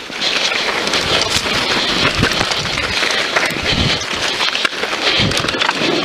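SCOTT Voltage FR 730 mountain bike riding fast down a dirt trail: tyres rolling and crunching over dirt and stones, with many quick knocks and rattles from the bike over the bumps.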